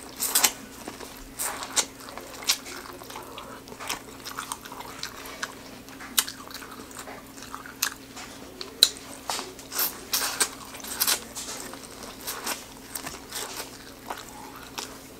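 Biting and chewing boiled corn on the cob: crisp, irregular clicks and crunches as the kernels are bitten off the cob and chewed.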